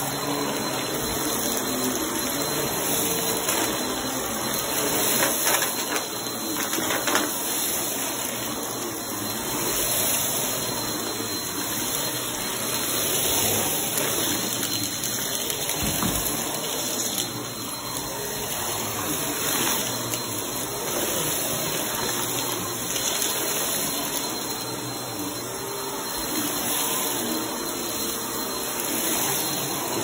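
Upright vacuum cleaner running steadily on carpet, its rushing noise swelling and easing as it is pushed back and forth. There are a few light knocks, and a low thump about halfway through.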